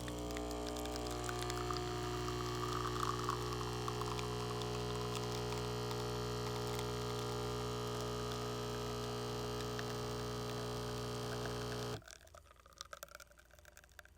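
Mini coffee machine's pump humming steadily while coffee pours out. The pump cuts off suddenly near the end, leaving a few faint drips.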